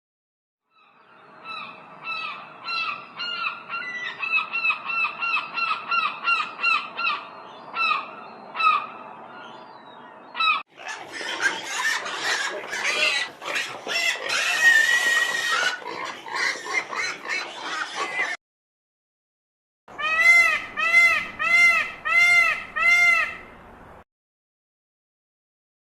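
Domestic fowl calling in three separate clips. First a bird gives short calls over and over, about two a second. Then a whole flock calls noisily at once. Last come six loud calls, each rising and falling in pitch.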